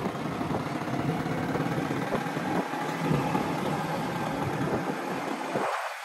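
Motorcycle engine running while riding along, with wind rushing over the microphone; the low engine sound drops away briefly near the end.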